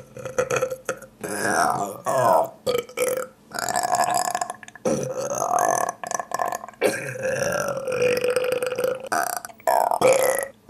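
A person belching: about eight burps in a row, most of them long and drawn out with a wavering pitch, separated by short breaks.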